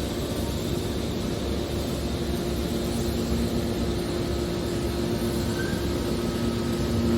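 Hydraulic aluminium can baler running: a steady mechanical hum from its motor and pump, with a noisy rush behind it.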